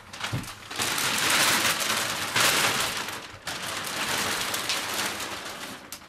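A large clear plastic sheet crinkling and rustling as it is pulled off a sofa and bundled up: a continuous dense crackle.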